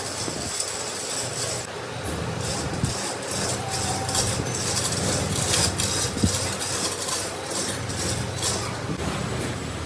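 Machine tool working a compressor crankshaft: a steady mechanical running sound with irregular, quick scraping and clinking strokes.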